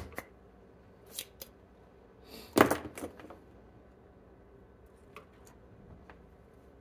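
Sharp clicks and knocks of small hand tools working on a circuit board. The loudest is a cluster of snaps about two and a half seconds in.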